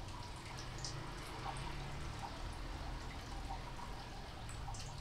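Quiet background: a steady low hum with a few faint, scattered small ticks.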